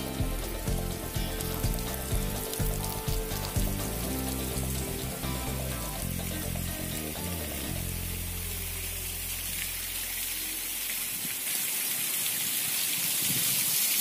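Background music, which fades out about ten seconds in, over the hiss of falling water from a thin waterfall splashing down a rock face. The hiss grows louder toward the end.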